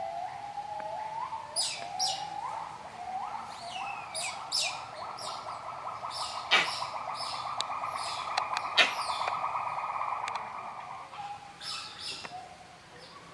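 Birds chirping in quick, repeated downward-sweeping calls over a droning buzz. The buzz rises in pitch in steps, holds steady for several seconds, then fades near the end. Two sharp clicks come about halfway through, the second the loudest sound.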